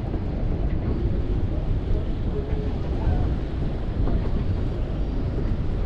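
Wind on the microphone on an open boat deck: a steady low rumble with no clear engine note.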